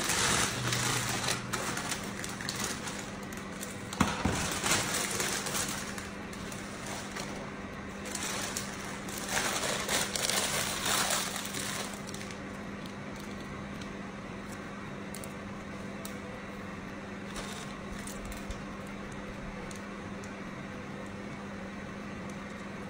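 Irregular rustling handling noises in several short bursts, with one sharp click about four seconds in, over a steady low hum; after about twelve seconds only the hum remains.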